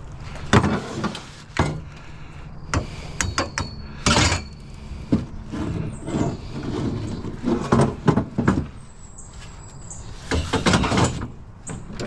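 Curbside scrap and boxes being handled and shifted: a series of knocks, clunks and scrapes, with a thin high squeak about three seconds in and another shortly before the end.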